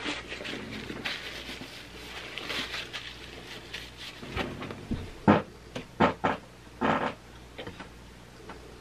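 Close-miked eating sounds: a person chewing pizza with soft wet mouth noises, then a handful of short, sharp bites and smacks about halfway through.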